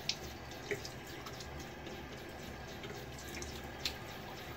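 A bathroom sink tap running steadily while the face is rinsed with handfuls of water, with a few small splashes and drips: alum being rinsed off the face after a shave.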